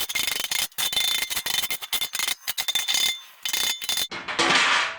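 Rapid, uneven hammer blows on a steel outrigger arm from a mobile home frame, with a metallic ring, beating the bent piece straight; the hammering stops about four seconds in.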